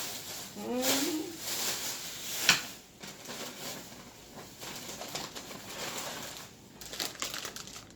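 Rustling and handling of shopping items and their packaging, with a sharp knock about two and a half seconds in. A short rising pitched sound, like a brief hum or coo, comes about a second in.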